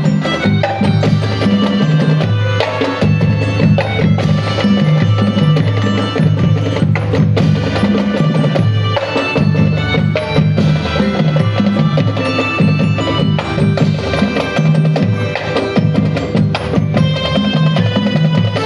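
Marching band playing a piece: drums and percussion driving a steady rhythm under pitched melodic instruments, with low notes moving in rhythm.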